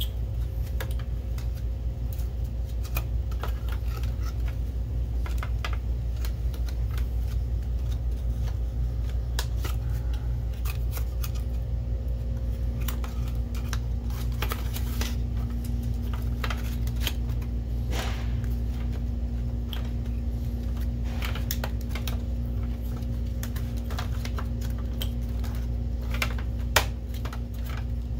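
Light clicks and rattles of metal and plastic parts being handled and seated as a projector's lamp and lamp-fan bracket are fitted into the chassis, over a steady low hum. A single sharp knock comes near the end.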